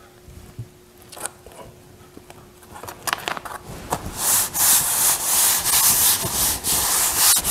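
Hands rubbing firmly over a corrugated cardboard panel, pressing it down onto fabric stuck with spray adhesive. After a few light taps, repeated rubbing strokes start about halfway through.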